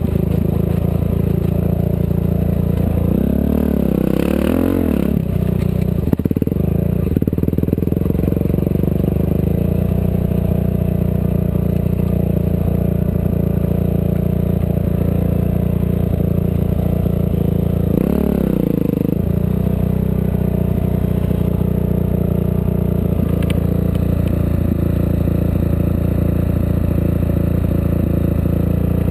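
Off-road race vehicle's engine running hard and steadily, with two brief swings in engine note, about three seconds in and again about eighteen seconds in.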